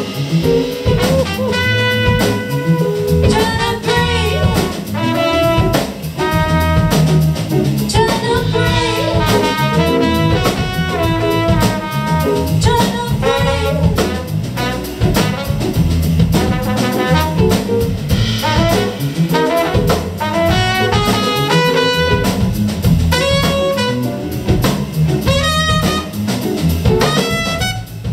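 A live band playing a jazzy passage: saxophone and trumpet carry the melody over drum kit and electric guitar.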